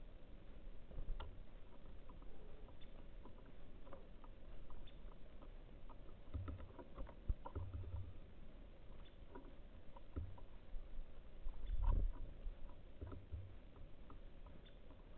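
Birds pecking and moving about at a seed feeder: scattered small ticks and taps, with several dull low thumps, the loudest about twelve seconds in.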